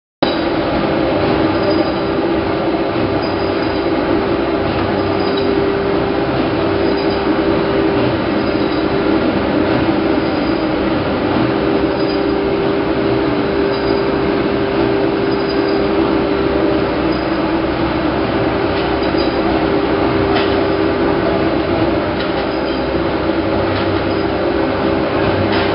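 Plastic-bag cutting machine running steadily: a constant mechanical hum with a faint tick repeating about once every second and a quarter.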